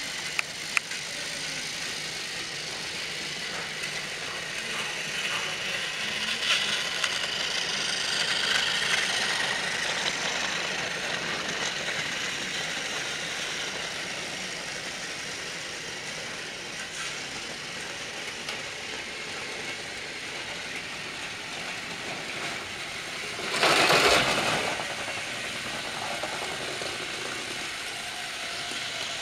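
Battery-powered Trackmaster toy trains running on plastic track: a steady small-motor whir with wheel rattle. Near the end comes one louder rushing burst lasting about a second.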